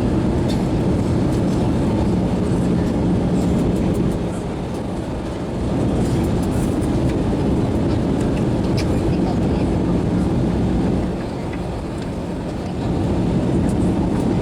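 Airliner cabin noise during the landing: a steady rumble of engines and airflow with a constant low hum, its level dipping twice for a second or two.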